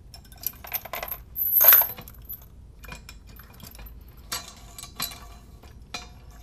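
Steel lifting chain of an engine support bar clinking and rattling as it is handled and hooked up. There are scattered clicks, a louder ringing metallic jangle about a second and a half in, and another few clinks later on.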